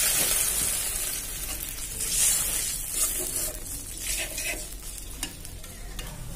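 Onion paste frying in oil in a metal wok, sizzling after a splash of water, the hiss dying down. A metal spatula stirs and scrapes the pan, with a few short knocks.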